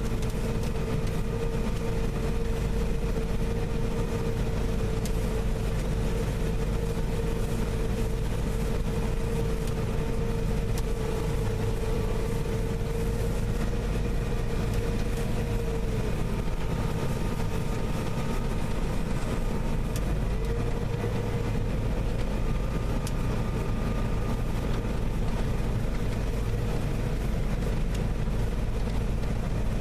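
Combine harvester running steadily in a soybean field: a constant engine drone with a whine over it. The whine sags about halfway through and comes back up a few seconds later.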